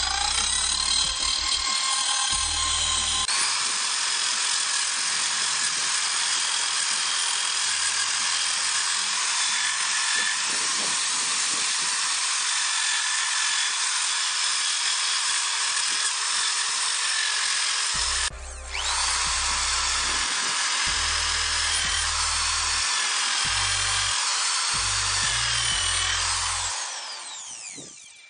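A corded 760 W electric impact drill running at speed with an abrasive wheel and then a sanding pad grinding against wood boards: a steady high motor whine over grinding noise. It cuts out briefly about 18 seconds in, runs again, and winds down near the end, with background music underneath.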